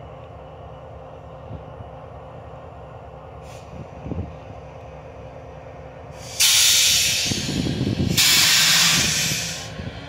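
BNSF diesel locomotives blowing off compressed air: two loud hisses, the first starting about six seconds in and the second right after it, each about a second and a half long, over the steady low rumble of the idling engines.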